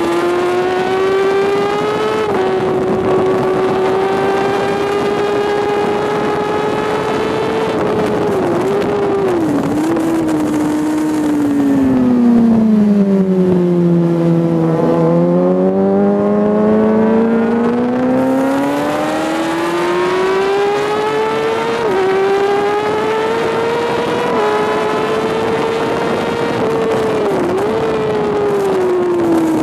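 Sport motorcycle engine at high revs on track. Its pitch falls over several seconds as the bike slows for a corner, then climbs steadily as it accelerates out, with brief dips at gear changes. Wind rushes over the bike throughout.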